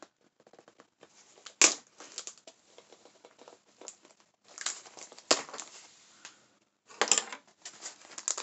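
A cardboard package being cut open with a knife and its wrapping pulled apart: crinkling and tearing, broken by three sharp snaps.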